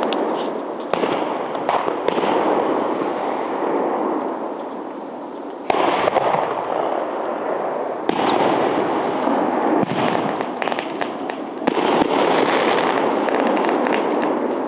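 Fireworks going off: a continuous crackle and rumble of many bursts, with sudden louder bangs about six, eight and twelve seconds in and scattered single sharp cracks.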